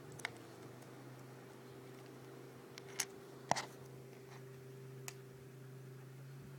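Handling noise from a handheld phone camera being picked up and moved: a few sharp clicks and knocks, the loudest about three and a half seconds in, over a faint steady low hum.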